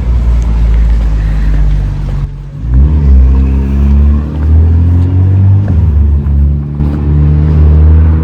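Motor vehicle engine running close by, its pitch rising and falling as it revs, with a dip in level a little over two seconds in.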